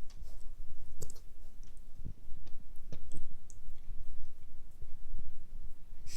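Newfoundland puppy hiccupping: short sharp hics about once a second.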